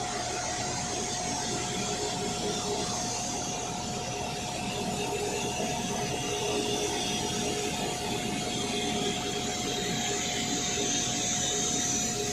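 Steady noise of a jet airliner's engines, a constant drone with a steady whine running through it.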